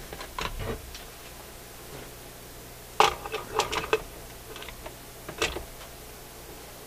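Handling clunks of a Dual 1228 turntable's platter being set back onto the spindle: a few soft clicks at first, a sharp knock about three seconds in followed by a quick run of smaller knocks, and one more knock near the end.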